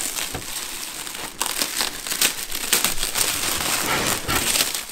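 Clear plastic packing wrap crinkling as it is handled and pulled back from a new plastic grille in its cardboard box: a string of irregular crackles, busier and louder from about a second and a half in.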